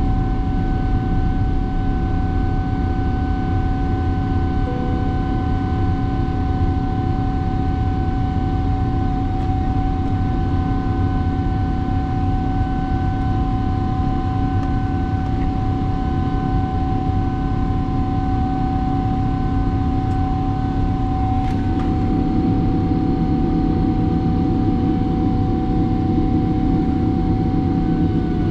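Steady drone of a jet airliner heard from inside the cabin: engine and airflow noise with a few steady whining tones over it. About three-quarters of the way through the whining tones shift and the low drone grows slightly louder.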